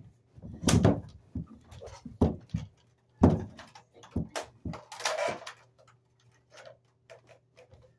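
Irregular knocks and thumps close to the microphone, seven or eight in all with quiet between them. The loudest come about a second in and about three seconds in.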